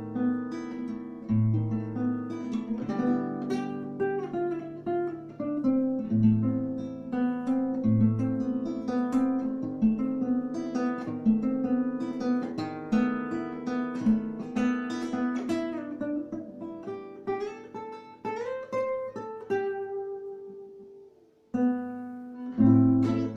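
Acoustic guitar played solo, with picked melody notes over bass notes. About twenty seconds in it fades out to a short pause, and then a loud chord comes in.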